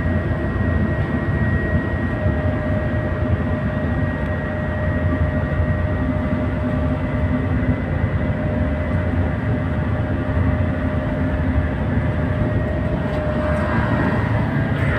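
Tugboat engine running with a steady, unbroken drone and a thin steady whine over it.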